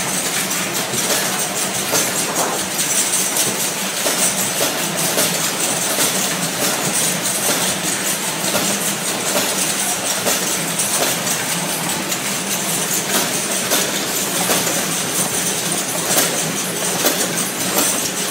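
Automatic cartoning machine for injection-ampoule boxes running at speed: a steady mechanical clatter of rapid small clicks and knocks over a low hum.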